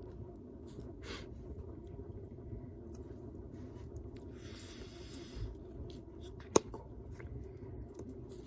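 A tobacco pipe being puffed alight with soft draws and a breathy exhale about four and a half seconds in, over a steady low rumble. A single sharp snap about six and a half seconds in is the loudest sound.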